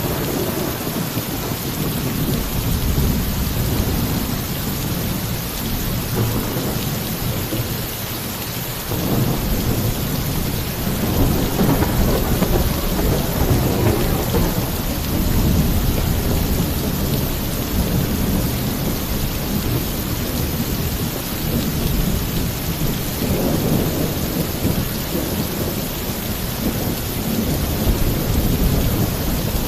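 Heavy rain pouring steadily on a roof, with long rolls of thunder rumbling underneath. A fresh, louder roll of thunder comes in suddenly about nine seconds in and swells again later on.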